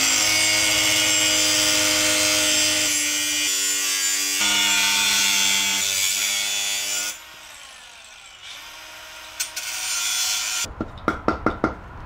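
A handheld power saw cuts through a mountain-bike fork's steerer tube, a loud metal-cutting buzz whose motor pitch shifts as it works. It stops abruptly about seven seconds in. A few light knocks follow near the end.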